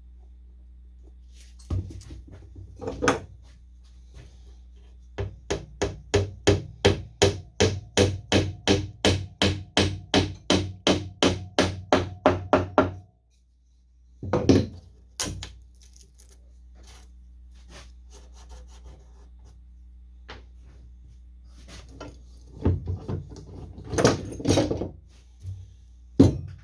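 Hammer blows driving wooden dowels into a piano pinblock: a steady run of sharp knocks, about three or four a second for some eight seconds, with a few single knocks before and after.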